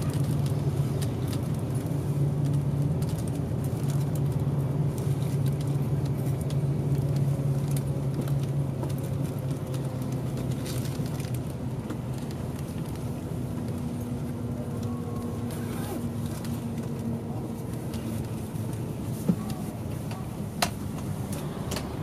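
Engine and road noise of a highway coach bus heard from inside the cabin: a steady low hum whose pitch shifts about halfway through. Two short clicks come near the end.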